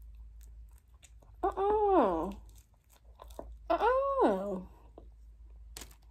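A woman chewing food, with small wet mouth clicks throughout. Twice she lets out a drawn-out hum that rises and then falls in pitch, about a second each, and there is one sharper click near the end.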